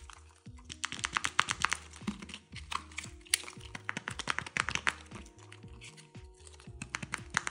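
Quick runs of sharp taps and clicks on hard plastic Kinder Joy egg capsules, fingernails tapping the shells and eggs knocking on the wooden table, coming in bursts with short lulls. Soft background music plays underneath.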